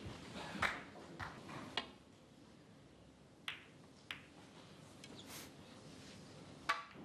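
Snooker balls clicking: the cue tip striking the cue ball, then balls knocking against each other and the cushions as a series of sharp single clicks spread out over several seconds, the sharpest near the end.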